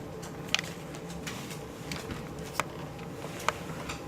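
A few light, sharp clicks and taps, spaced a second or so apart, from toys being handled, over a steady low room hum.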